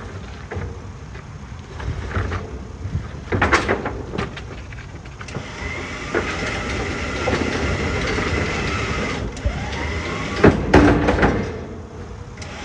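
Electric winch running with a steady whine, hauling an MGB GT bodyshell on wooden pallets up a tilt-bed car trailer. Sharp clunks and creaks from the pallets and trailer come about three seconds in and again near the end.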